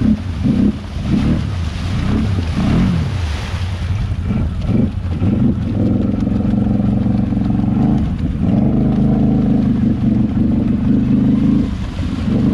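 Can-Am Renegade ATV's V-twin engine revved hard while the quad sits buried in deep mud: short rising-and-falling throttle blips for the first few seconds, then held at high revs for two long stretches, with a brief dip between them and a drop near the end.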